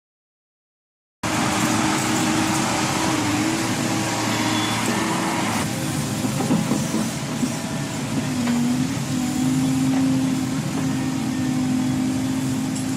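Heavy vehicle engine running steadily, cutting in suddenly about a second in, its pitch wavering and shifting a little as it works.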